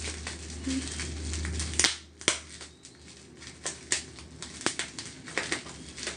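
Thin plastic wrapping crackling and crinkling as fingers pick and peel at it around a small cosmetic jar. The wrapping is tight and hard to get off. Dense rustling for about the first two seconds, then scattered sharp crackles.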